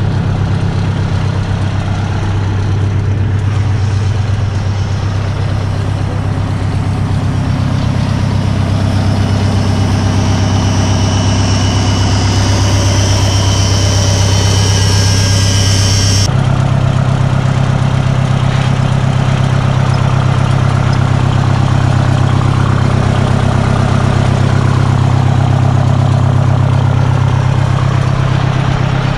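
The 1974 White Road Boss's 8V71 two-stroke Detroit Diesel running hard and steady with the truck chained down. A high hiss builds over it and cuts off suddenly about sixteen seconds in, where the engine's pitch steps up and then holds.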